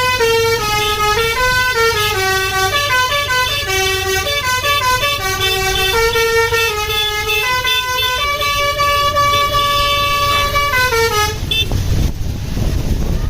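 Bus telolet horn of the basuri type playing a melody: a run of loud, stepping notes with some held longer, stopping about 11 seconds in. A steady low rumble of engine and traffic runs beneath.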